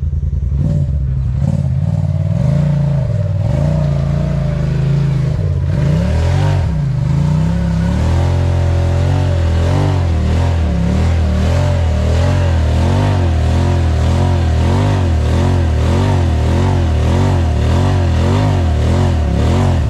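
Off-road side-by-side UTV engine running and revving, its pitch rising and falling as the throttle changes. From about eight seconds in, the engine note swings up and down over and over in a quick, steady rhythm.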